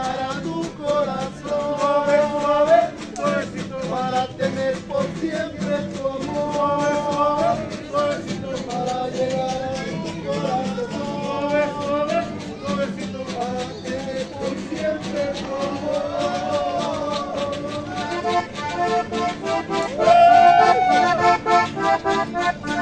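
Live accordion and guitars playing a dance tune with a steady strummed rhythm.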